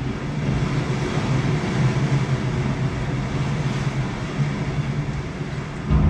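Storm-at-sea sound effect from the show's soundtrack: a steady rushing noise of wind and heavy waves, with low sustained tones beneath.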